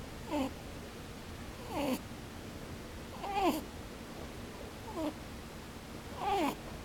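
A pet rabbit snoring in its sleep: five short 'poo-poo' snores, each falling in pitch, about one every second and a half.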